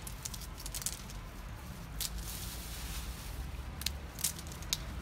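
Scattered light clicks and crackles from a plastic bag of feed being handled, with a brief rustling hiss about two seconds in, over a steady low rumble.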